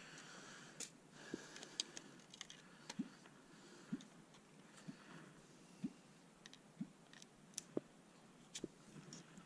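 Faint, irregular clicks and soft taps, about one a second, from gear being handled, over a quiet background.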